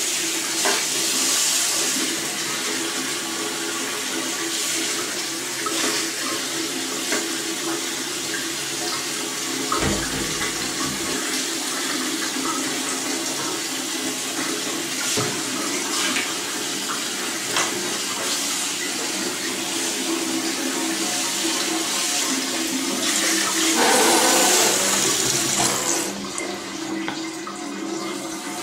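Water from a bathroom sink tap running in a steady stream and splashing into a basin partly filled with water. The flow drops away near the end.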